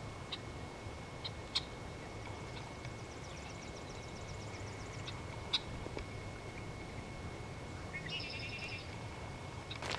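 Birds calling faintly: scattered short high chirps, a rapid trill of repeated notes a few seconds in, and a more complex patterned call near the end, over a low steady outdoor background.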